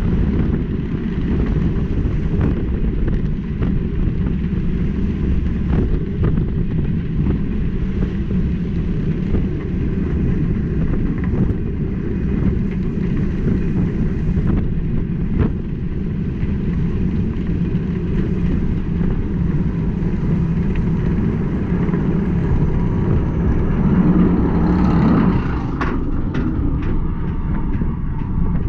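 Orion giga coaster train climbing its lift hill, heard from the front seat: a steady low mechanical rumble from the lift and wheels, with scattered sharp clicks. Near the end the sound thickens and the clicks come more often as the train crests the top.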